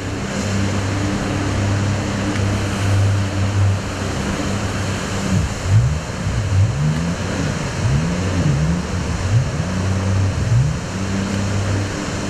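Jet boat engine running over the rush of fast river water, holding a steady note, then from about halfway revving down and up again and again as the boat turns.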